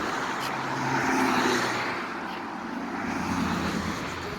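A car's engine and tyre noise, swelling to a peak about a second in and again about three and a half seconds in.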